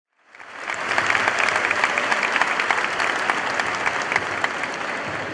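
Audience applauding: a dense, steady patter of many hands clapping that rises in quickly just after the start.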